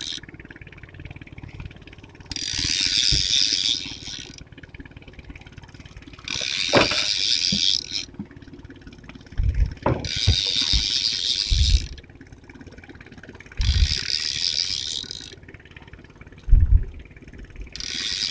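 Spinning fishing reel being cranked in short bursts, a high whirring of about one and a half seconds repeated roughly every three and a half seconds, as line is wound in. A few dull low thumps fall between the bursts.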